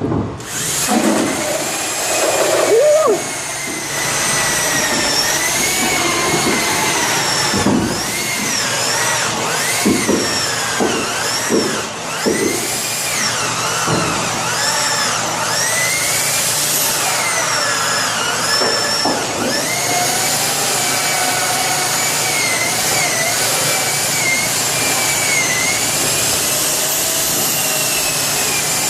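Power drill boring a 3-inch hole, its motor whine dipping and rising as the load on the bit changes, with a few short knocks partway through.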